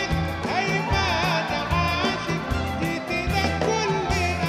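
Live Arabic band music: a Gulf-style song with a steady bass and drum beat under strings and keyboard, and a male voice singing a wavering melody over it.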